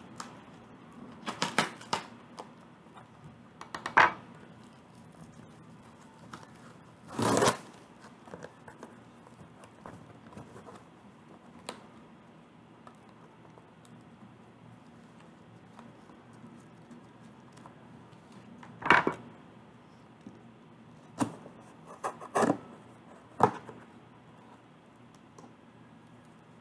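A cardboard shipping box being opened by hand: a scattered series of short rips and scrapes of packing tape and cardboard, about seven in all, the longest about seven seconds in, with pauses between.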